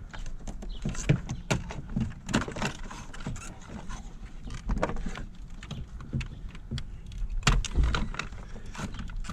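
Irregular clicks, taps and light rattles from hands working on a car's fuse block: plastic covers, relays and connectors being handled.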